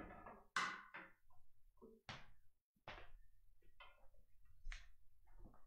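Handling noise as stringed instruments are set down and people move about: scattered light knocks and clunks, about one a second, with rustling in between.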